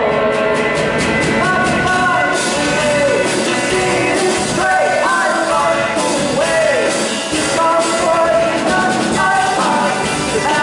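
Rock band playing a passage without lyrics. Quick drum hits, closely spaced, open the first two seconds, then the full band comes in under a melody line that slides up and down in pitch.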